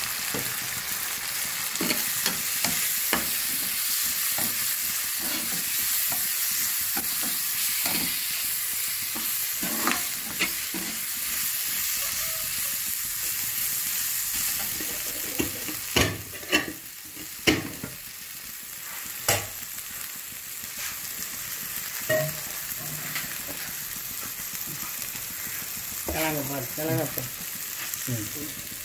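Onions, curry leaves and green chillies sizzling in oil in a kadai while a perforated spatula stirs them, with sharp knocks and scrapes of the spatula against the pan. The sizzle eases a little after the middle, where a quick run of several knocks comes.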